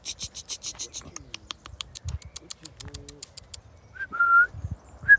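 A person whistling to call horses: two short, steady whistles near the end, after a quick run of high clicks that slow down over the first few seconds.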